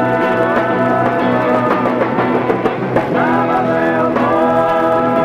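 Live rock band playing, with electric guitar and drums under a voice singing long held notes.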